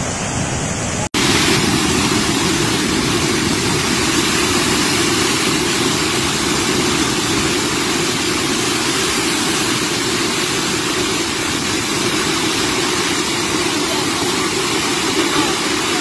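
Heavy, steady rushing of a waterfall in flood, swollen brown water pouring down and spreading across the road below. The sound briefly cuts out about a second in, then goes on unchanged.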